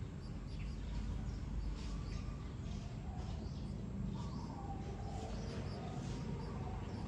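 Small birds chirping, short high calls again and again, over a steady low rumble of outdoor ambience. Faint wavering tones sound around the middle.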